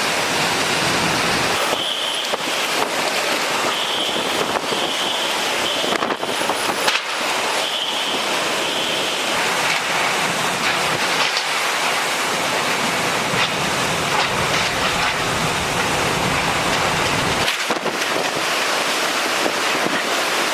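Hurricane-force wind and rain: a steady, dense rush of noise, with a faint high whistle coming and going several times in the first half.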